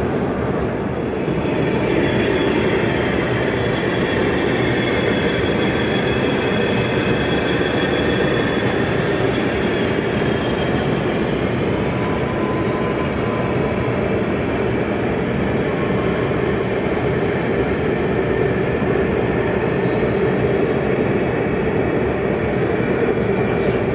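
0 gauge model train running on the layout's track, giving a steady rolling noise of wheels on rail with no break.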